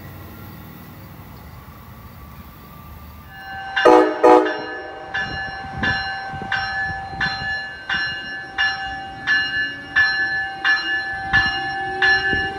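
The rumble of a passing Amtrak train fades, then a train horn sounds two short toots, followed by a locomotive bell ringing steadily about one and a half strikes a second.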